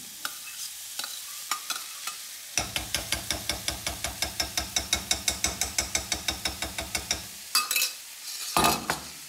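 Basmati rice being stirred and chopped with a spatula in a hot wok of fried chicken and vegetables, over a frying sizzle: a few scattered taps, then a fast, even run of about six strokes a second for several seconds. Near the end come two loud clanks of metal cookware.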